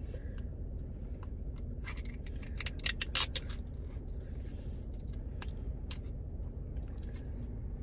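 Peel-off lid being pulled from a small plastic dipping-sauce cup: a run of sharp crinkling crackles, densest about two to three seconds in, over a low steady rumble.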